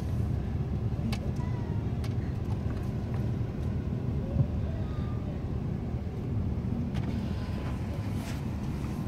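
Steady low rumble of an SUV's engine and tyres, heard from inside the cabin as it drives off slowly, with a single sharp click about four and a half seconds in.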